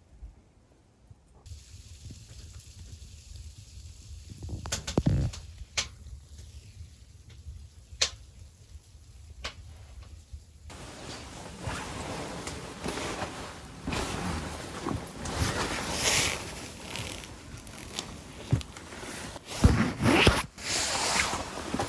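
A few single drops tapping on a window pane. Then steady wind noise and the rustle of tent fabric and clothing as someone pushes out through the tent door, with a few louder thumps near the end.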